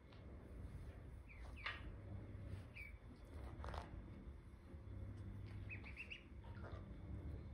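Ducklings peeping: a few scattered short, high chirps, then a quick run of about five, over a faint low hum.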